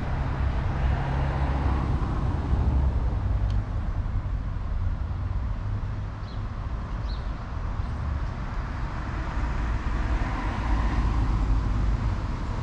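Road traffic going past: cars driving by, swelling louder about a second or two in and again near the end, over a steady low rumble.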